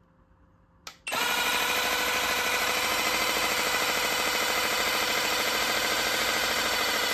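A click, then a Gemmy dancing-hamster toy's small motor and plastic gearbox switch on and run hard and steadily with a dense mechanical buzz and fast rattle, overdriven from a bench supply at 18 volts instead of its batteries.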